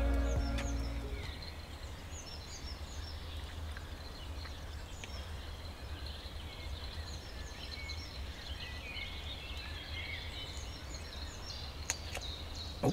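Outdoor lakeside background: a steady low wind rumble on the microphone with small birds chirping now and then. Music fades out about a second in.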